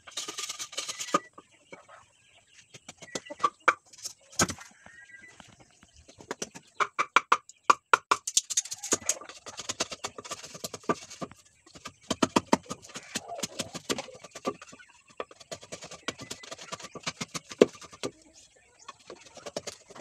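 Irregular knocks and taps in clusters, from hand building work on a wooden egg rack inside an old refrigerator being made into an incubator. Short bird calls sound faintly now and then.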